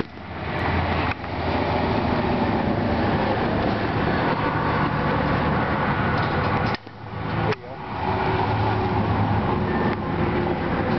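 Steady mechanical drone with a low hum, broken by two sharp knocks, about a second in and again past the middle.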